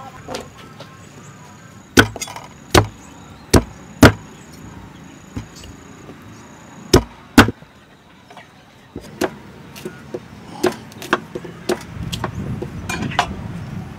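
Cleaver chopping through corn cobs on a wooden chopping block: about six loud, separate chops in the first half, then lighter, quicker knocks near the end.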